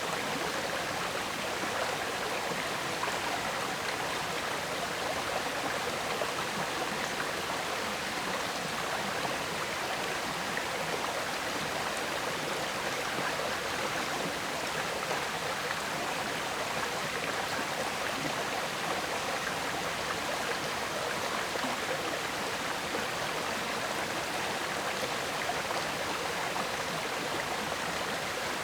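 River water flowing and gurgling steadily, a constant rushing with no breaks or changes.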